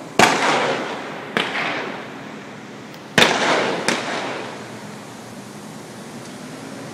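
Four loud bangs of simulated gunfire, each trailing off in a long echo. Two come about a second apart, then after a pause two more in quick succession.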